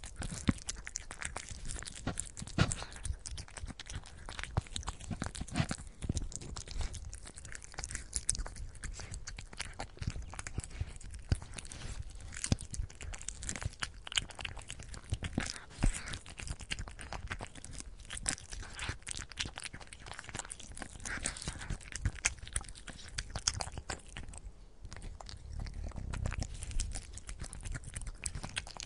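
Cat eating, crunching and chewing its food in a dense run of quick irregular clicks.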